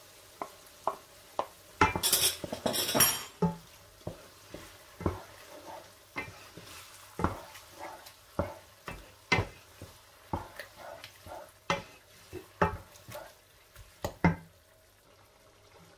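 Wooden spoon stirring and scraping minced meat and tomato puree in a nonstick frying pan, with many sharp knocks of the spoon on the pan over a faint sizzle. A louder stretch of scraping comes about two seconds in.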